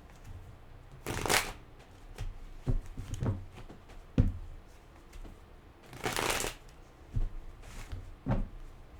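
Tarot cards being shuffled by hand: two longer rushing bursts of cards sliding together, about a second in and about six seconds in, with scattered short taps and knocks of the deck between, the sharpest a little after four seconds.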